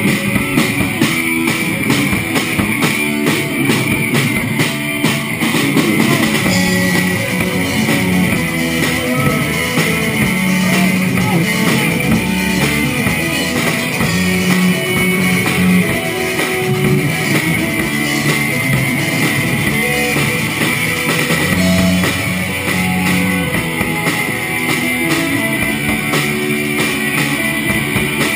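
Rock band playing: electric guitars, bass guitar and drum kit, loud and steady throughout with a regular drum beat.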